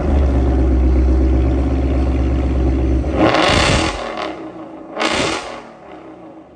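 Ford Mustang with a Corsa cat-back Extreme exhaust running at a fast, loud idle, then revved in two short blips about three and five seconds in, settling back to a lower, quieter idle.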